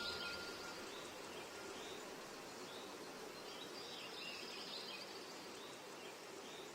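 Faint outdoor ambience: a steady low hiss with soft scattered bird chirps.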